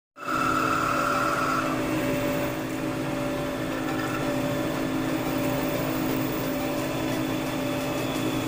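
Metal lathe turning aluminum bar stock, its motor and gearing giving a steady hum of several tones. A higher whine comes in for about a second and a half near the start and again briefly about four seconds in.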